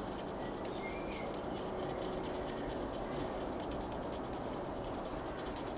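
Quiet room tone with faint, fine scratching of a cocktail stick rubbed in small circles on the painted plastic side of a model locomotive, working a transfer number off. The scratchy ticks come more often near the end.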